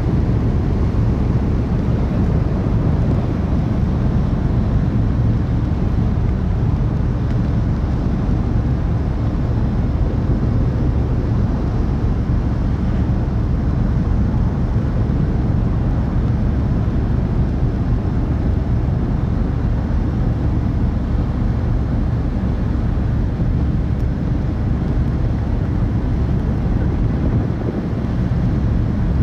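A car ferry's engines running under way, heard from on board as a steady low rumble.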